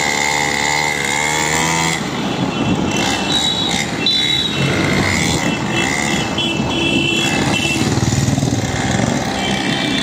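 Small motorbike engines running on the move through a street, the 49cc mini dirt bike riding alongside the following scooter. A wavering engine note for about the first two seconds, then a rougher mix of engine and road noise with a few short high-pitched tones.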